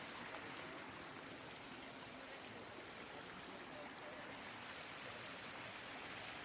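Steady rushing of a creek and its waterfall, an even wash of water noise with no breaks.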